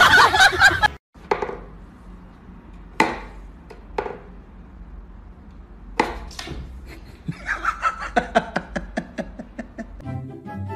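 Dachshund puppy yapping at its own reflection: single short, sharp yaps a second or two apart, then a quick run of them near the end. A person's voice is heard in the first second, and music comes in at the very end.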